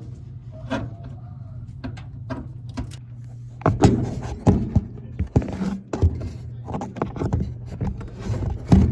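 Clicks and knocks of a replacement dryer idler pulley being fitted and lined up on the dryer's metal frame, starting about three and a half seconds in, over a steady low hum.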